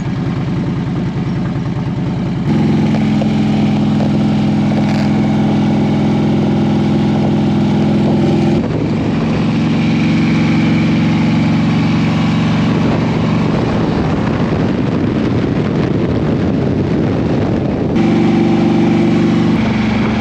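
Harley-Davidson Road King's V-twin engine running at a steady pace while the bike is ridden on the road. The engine note changes abruptly a few times.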